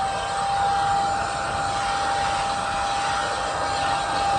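ORFELD cordless vacuum cleaner running in handheld mode, sucking dirt out of car-seat crevices: a steady high motor whine over rushing air.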